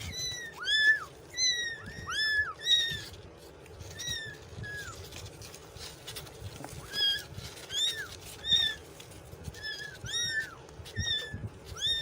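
Kitten meowing over and over: a quick run of short, high-pitched meows, with a lull in the middle before the meows start again.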